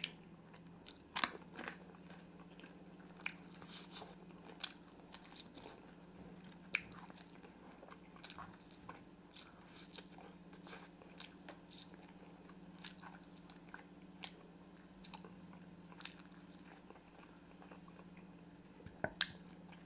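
Close-miked mouth sounds of a man chewing and gnawing meat off fried pork ribs, with scattered wet clicks and smacks. A steady low hum runs underneath.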